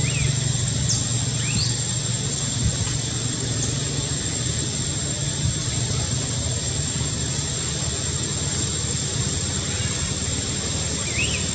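Steady low background rumble under a thin, high, steady whine, with a few short high chirps about a second in and again near the end.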